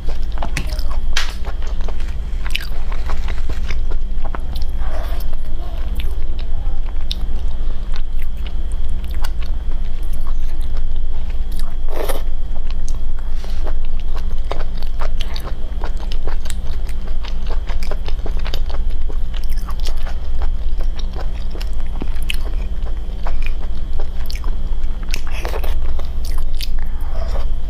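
Close-miked mouth sounds of eating shellfish: chewing and biting, with scattered wet clicks and smacks, over a steady low hum.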